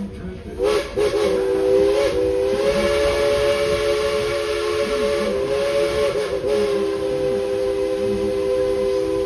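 Steam whistle of narrow-gauge steam locomotive #190 sounding a long blast of a few notes at once, with a short break about half a second in and small wobbles in pitch, over the hiss of steam.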